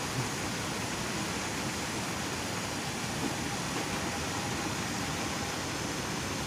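Steady, even rushing background noise with no distinct events, only a faint small knock or two.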